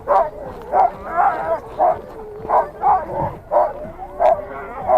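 Sled dogs barking and yipping over and over, about two barks a second, with several voices overlapping: excited dogs keen to run.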